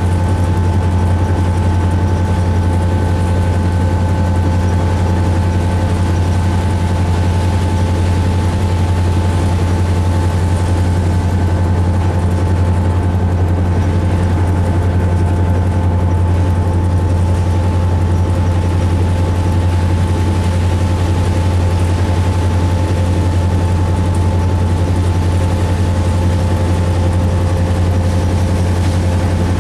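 Series 661 diesel locomotive's EMD V16 two-stroke diesel engine running steadily as the locomotive travels. It gives a deep, even drone with a few thin steady whining tones above it.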